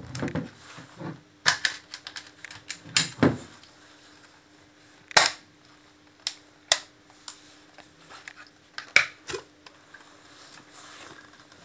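Sharp clicks and knocks of a hard plastic underwater camera housing being handled, its latches unclipped and the case separated into its front and back halves. The clicks come irregularly, a dozen or so, with the loudest about a second and a half, three, five and nine seconds in.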